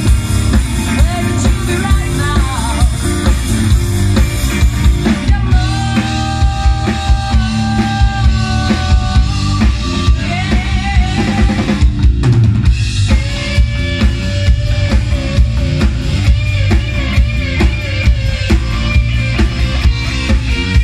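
Live rock band playing through a PA: a drum kit keeps a steady beat, about two hits a second, under amplified electric guitars, with held melodic notes in the middle.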